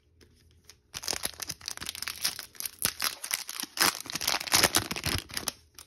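Trading-card pack wrapper crinkling and being torn open by hand: a dense run of crackles starting about a second in and lasting about four and a half seconds.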